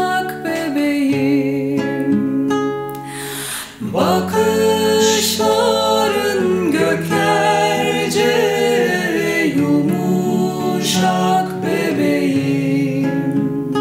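Acoustic guitar accompanying a woman singing a slow song, with a man's voice joining her after a short break about four seconds in.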